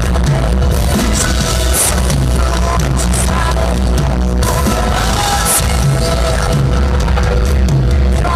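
Rock band playing live and loud through a stage PA: electric guitar, bass and drums with cymbals.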